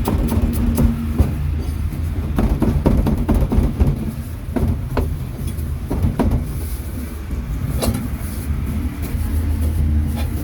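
Irregular sharp knocks of a cleaver chopping pork on a chopping board, over a steady low rumble of street traffic.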